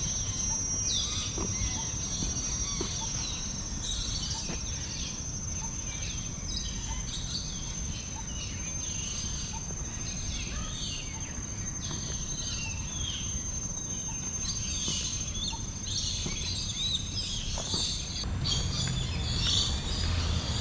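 Many birds chirping and calling over one another in a large aviary, over a steady high-pitched whine that stops near the end.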